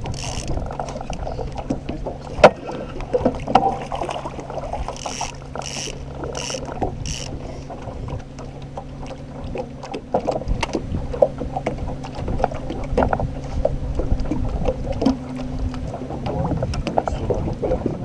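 A fishing reel being cranked with rapid mechanical clicking as a hooked fish is reeled in to the net, over the steady hum of the boat's motor. A sharp knock comes about two and a half seconds in, and a few short hissing bursts follow between five and seven seconds in.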